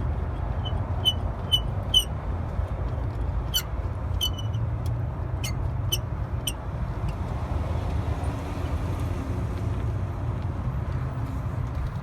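Light, sharp clicks and taps of plastic parts being handled while a car headlight bulb is worked loose, about a dozen spread through the first seven seconds and one more near the end, over a steady low rumble.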